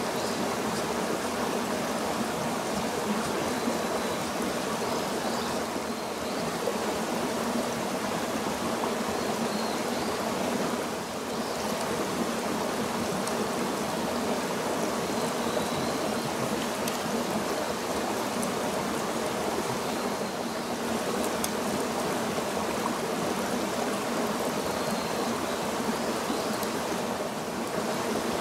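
A rocky stream running steadily, a constant rush of water.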